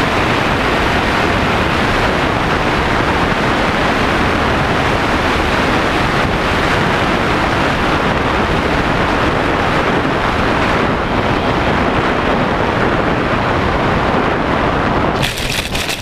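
Loud, steady rush of wind over the onboard camera microphone of a Ritewing Zephyr II flying wing in flight in gusty wind. The noise drops off near the end as the plane comes down over the grass.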